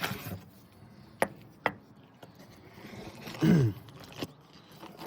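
Two sharp clicks of small parts being handled, then a short vocal sound that falls in pitch, like a grunt or hum, which is the loudest thing.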